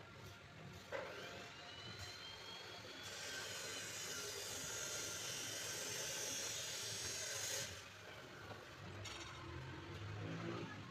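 Cylinder boring machine starting up with a rising whine about a second in, then running with a steady hiss for several seconds before cutting off suddenly.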